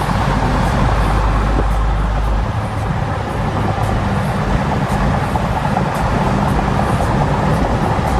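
Car driving along, with a steady low engine and road rumble.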